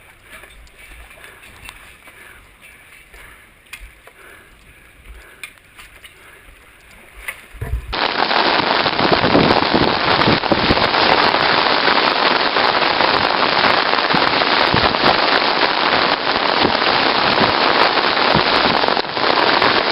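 Quiet, faint background noise at first; then, about eight seconds in, heavy monsoon rain starts abruptly and pours down loud and steady.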